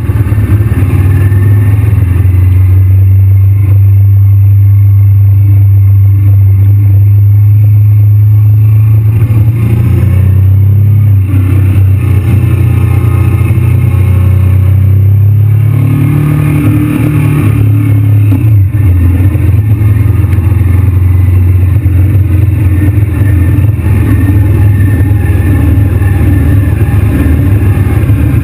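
Honda VTR V-twin motorcycle engine running at steady cruising revs, heard from the rider's seat. The note climbs a little just past halfway, dips sharply once shortly after, then settles back to a steady run.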